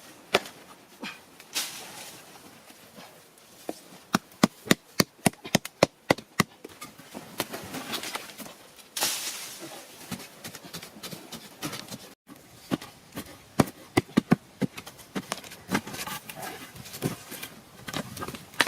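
Irregular sharp knocks and clicks, coming several a second at their busiest, with a brief dropout about twelve seconds in.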